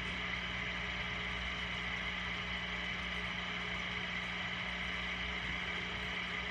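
Steady hum of a small motor running, a constant low tone with an even hiss over it.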